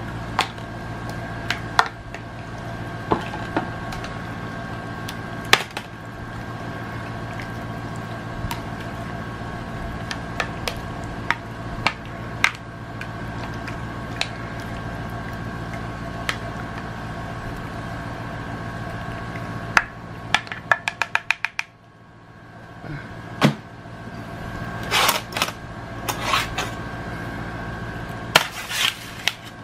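Metal sheet pan and wire rack clinking and knocking as they are handled, over a steady electrical hum. About twenty seconds in there is a quick run of a dozen or so clicks, the hum cuts out for a couple of seconds, and then the pans clatter louder near the end.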